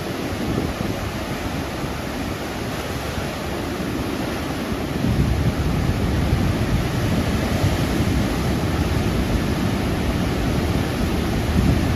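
Steady rushing noise of a typhoon's wind and sea, growing louder about five seconds in.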